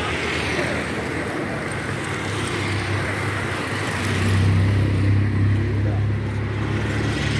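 City road traffic: cars and scooters passing. A vehicle passes close, with a low engine hum rising about halfway through and loudest for a couple of seconds.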